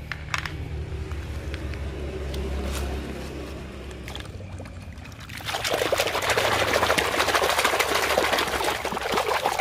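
Water sloshing and splashing in a basin as a hand scrubs a mud-covered toy truck, loud and continuous from about five and a half seconds in. Before that, only small clicks over a faint low hum.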